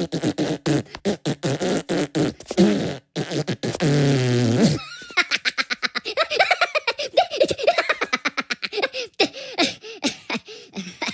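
Cartoon fart sounds and high Minion voices giggling, chopped into rapid stuttering repeats. About four seconds in comes one longer, low, wavering fart.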